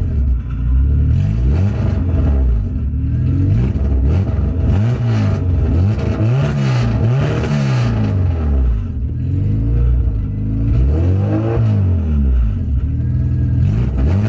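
H2B-swapped Honda Civic engine being revved again and again, the pitch climbing and dropping about every two seconds. It breaks up as it revs, which the owner puts down to running a base map without a tune.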